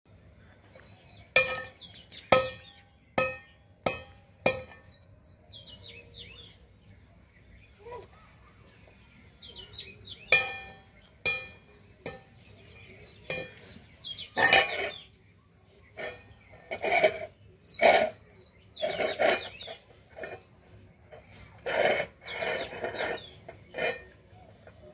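Short, sharp ringing clinks, five in the first five seconds and two more around ten seconds in, over small birds chirping; from about fourteen seconds a run of louder, rougher noisy sounds takes over.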